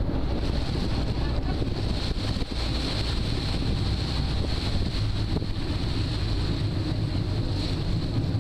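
Steady wind buffeting the microphone on a ferry under way, with the boat's engine and water washing along the hull beneath.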